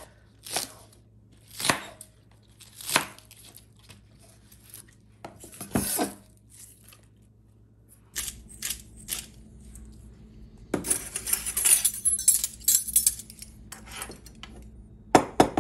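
Kitchen knife chopping green onions on a wooden cutting board: a handful of single chops, a second or more apart. Later comes a stretch of scraping and rustling as the chopped greens are swept into a glass measuring jug, and near the end a metal measuring spoon clicks against a small ceramic dish.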